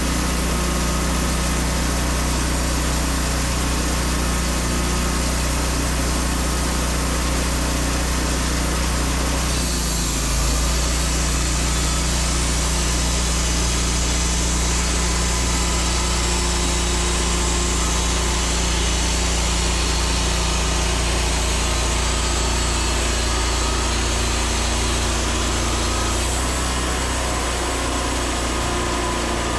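Wood-Mizer LT40 portable sawmill's gas engine running steadily. There is a brief bump about ten seconds in, and after it more high-pitched noise rides on the engine.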